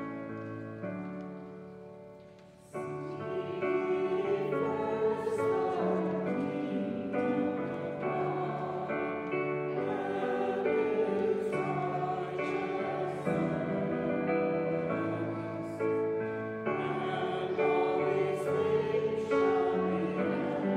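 Voices singing a hymn with instrumental accompaniment. A softer, fading instrumental chord opens, and the singing comes in louder about three seconds in.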